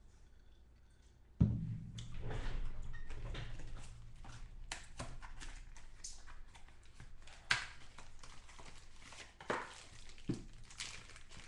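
A sharp thump about a second and a half in, then trading-card pack wrappers rustling and crinkling as the foil packs are handled and opened, with a few short clicks and taps.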